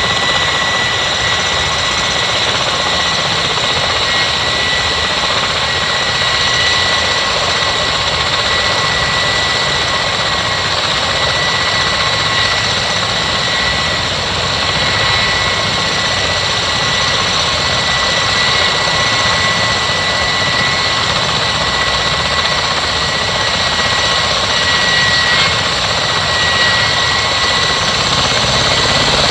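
MV-22 Osprey tiltrotor running on the ground. Its twin turboshaft engines give a loud, steady whine over a continuous rushing noise.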